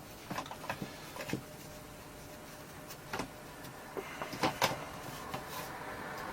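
Scattered light clicks and taps of plastic parts being handled: a few in quick succession early, one about three seconds in, then a run of several a little after four seconds.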